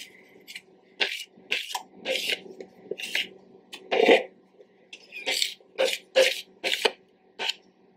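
A metal spoon scraping the last batter from the inside of a mixing bowl: about fifteen short scrapes at an uneven pace.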